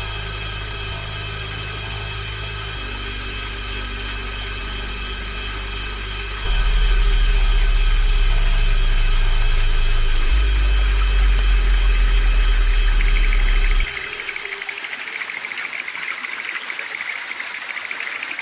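A loud, steady low drone that shifts pitch in a few steps, grows louder about six seconds in and cuts off about fourteen seconds in, followed by a steady hiss.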